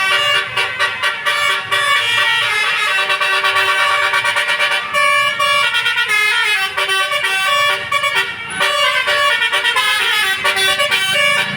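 A tour bus's Basuri telolet air horn playing a tune: several horn trumpets sound changing notes together, step by step like a melody.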